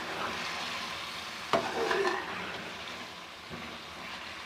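Chicken frying and sizzling in masala in a metal pan while a metal spoon stirs and scrapes it, with one sharp knock of the spoon against the pan about one and a half seconds in. After about two seconds the stirring eases and the sizzle carries on more quietly.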